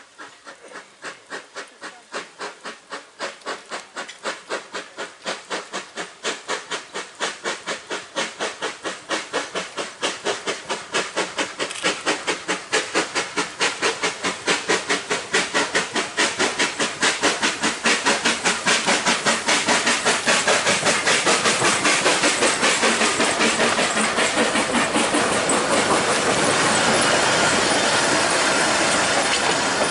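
Narrow-gauge steam tank locomotive working a train towards the listener, its exhaust chuffing in even beats that grow steadily louder. Near the end the beats blur into a steady hiss of steam and the rumble of the carriages as the train passes close by.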